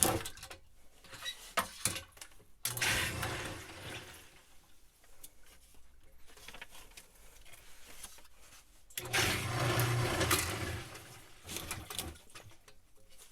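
Sump pump running in two bursts: its motor hums and water rushes and gurgles through it, briefly about three seconds in and louder for a couple of seconds about nine seconds in. Clicks and knocks come before the first burst.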